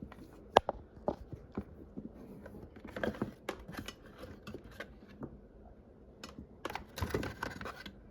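Irregular light clicks, taps and rustling from small objects being handled on a desk, with one sharper knock about half a second in and a busier patch of clicking and rustling near the end.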